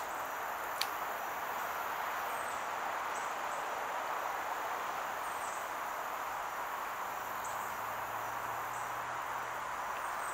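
Steady outdoor insect chorus, with short high chirps every second or two and a faint click about a second in.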